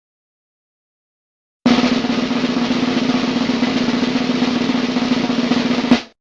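Snare drum roll sound effect, starting about a second and a half in, held steady for about four seconds and closing on one sharp hit before it cuts off.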